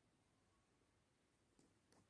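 Near silence: faint room tone, with two faint short clicks near the end.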